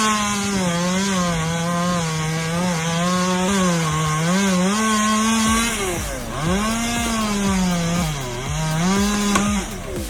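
Chainsaw engine running hard through wood, its pitch wavering as the chain bites. It sags sharply twice in the second half and climbs back each time, then cuts off just before the end.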